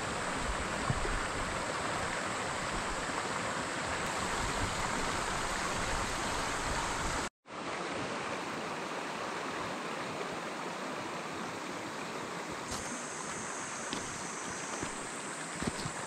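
Mountain stream running over rocks: a steady rush of water, broken off for an instant about seven seconds in.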